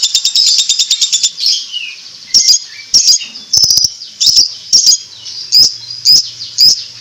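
A bird ends a long, very rapid high-pitched chattering trill (the 'ngekek' song) about a second in, then gives single sharp chirps about every half second.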